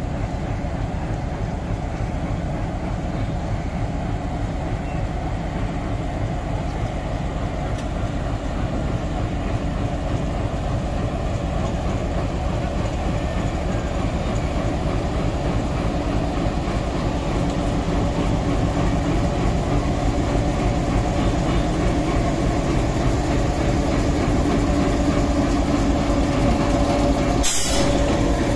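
Bangladesh Railway diesel-electric locomotive running close by as it moves slowly past, a steady low engine drone with a hum that grows louder over the second half. A brief sharp hiss sounds near the end.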